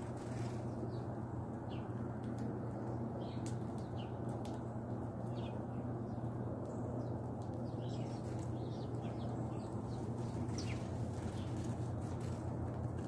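Sparrows chirping: short high chirps scattered throughout, more frequent in the second half, over a steady low hum.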